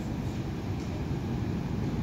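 Metro train approaching through the tunnel: a steady low rumble that grows slightly louder.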